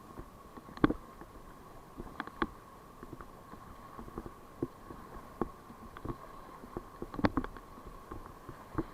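Paddles working a rubber river raft: scattered irregular knocks and splashes as the crew paddles without talking, over a faint steady hum.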